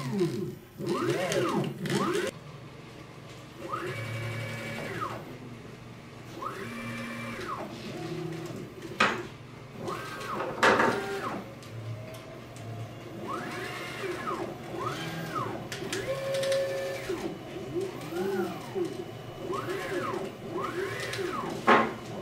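Closed-loop stepper motors (Ezi-SERVO II EtherCAT) driving the joints of an igus Robolink robot arm. They whine again and again, each whine rising and falling in pitch over about a second as a joint speeds up and slows down. A few short sharp clacks come about nine, eleven and twenty-one seconds in.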